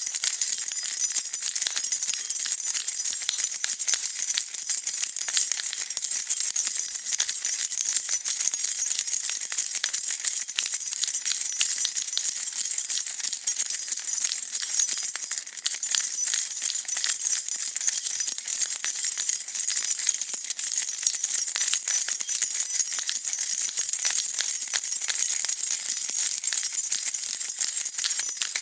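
A bunch of metal keys being shaken and jingled without a break, a dense, bright metallic clinking.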